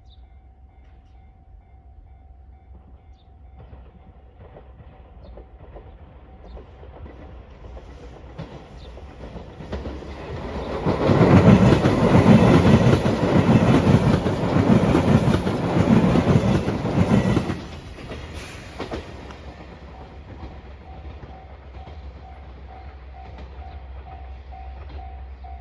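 JR Shikoku 8000-series Shiokaze limited express electric train, a five-car white Anpanman set, passing over a level crossing. Its wheels clack over the rail joints, loudest for about seven seconds in the middle. A level-crossing bell dings faintly at the start and again near the end, about twice a second.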